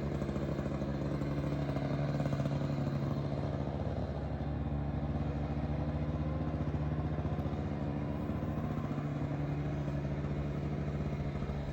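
Echo two-stroke chainsaw idling steadily.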